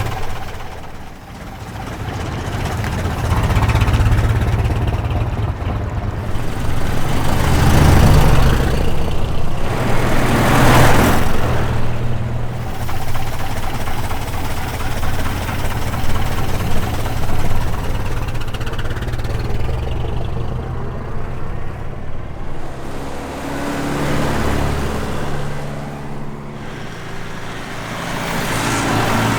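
1927 Chevrolet roadster's four-cylinder 2.8-litre engine running. Its level dips about a second in, then rises, and is loudest between about eight and eleven seconds in.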